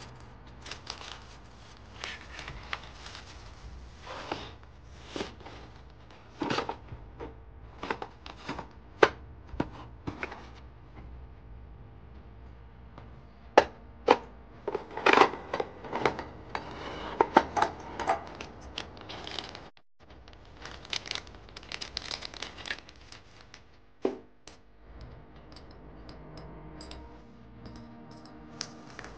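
Plastic wrapping on IKEA storage boxes being slit with a utility knife and pulled off, crinkling and tearing, with sharp clicks and knocks as the clear plastic boxes and their lids are handled on a cutting mat.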